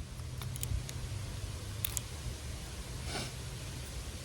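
A few light clicks and a soft rustle of split firewood and the knife being handled, over a low steady rumble; there are no batoning strikes.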